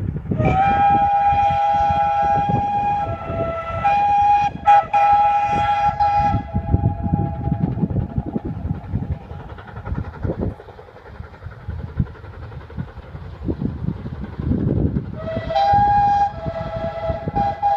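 Vale of Rheidol No.8, a narrow-gauge 2-6-2 tank steam locomotive, working hard uphill with its regulator opened up: exhaust beats throughout, with one long blast on the whistle of about six seconds, briefly broken partway, and a second blast starting near the end.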